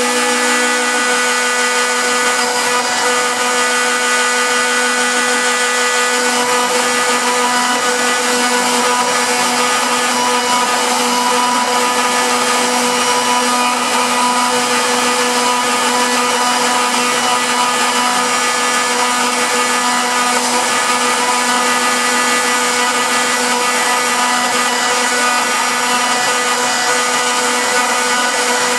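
CNC router's spindle motor running with a steady whine of several fixed tones while a small straight bit engraves lettering into an MDF lid, with a constant rush of cutting noise.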